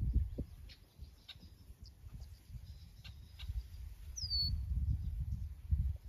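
Wind gusting over the microphone in uneven low rumbles, strongest in the second half, with a few faint short bird calls over it, one a brief falling note about four seconds in.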